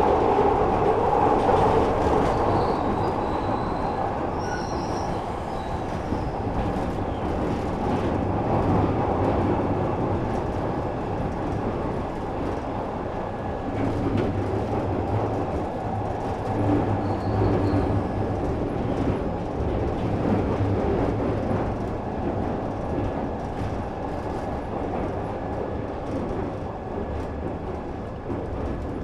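Glasgow Subway train running: a steady rumble of wheels on rail with scattered short clicks, easing a little in loudness over the first few seconds.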